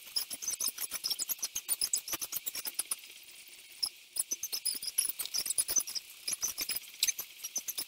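Sounds of a home workout sped up sixteen times: footfalls and body movement turned into a rapid, high-pitched stream of squeaks and clicks, with a short lull about four seconds in.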